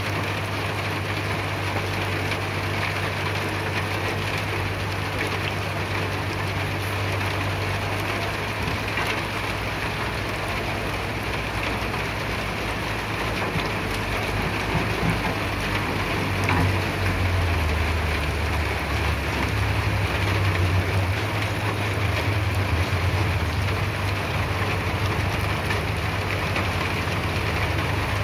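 CAT E120B excavator's diesel engine running steadily under an even hiss. A little past halfway the engine note grows louder and deeper, as under heavier load.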